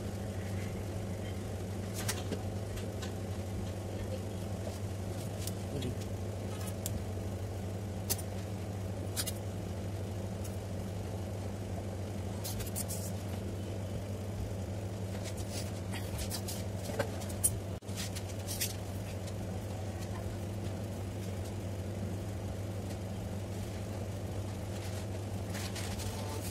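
A steady low machine hum, with a few faint clicks and taps from handling.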